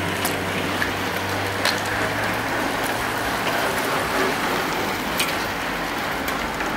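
Road racing bicycles riding past in a bunch: a steady hiss of tyres and drivetrains with a few sharp clicks. A car following the riders comes up as a low rumble near the end.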